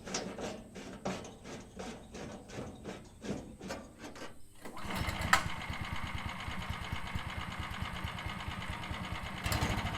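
Rapid clicking, about three clicks a second, then about halfway through the band sawmill's engine runs steadily.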